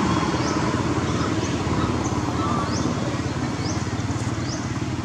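A steady low engine drone. Over it, a short high rising chirp repeats about every 0.8 seconds.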